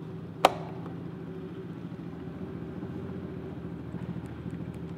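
A sharp click from the ignition key of a Kawasaki KFX 450R quad about half a second in, over a steady low mechanical hum with a faint fast pulse. The quad does not start: the owner suspects a flat battery.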